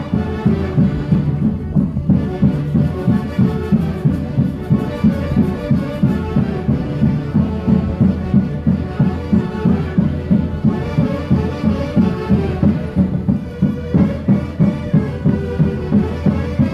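Andean orquesta típica playing Santiago festival music: wind instruments carrying the melody over a steady beat of about two to three pulses a second.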